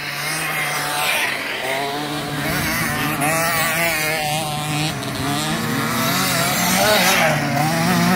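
Small 50cc two-stroke youth motocross bikes, among them a KTM 50 SX, racing up the dirt track. Their engine pitch rises and falls continuously as the throttle opens and eases, and the sound grows louder over the first second.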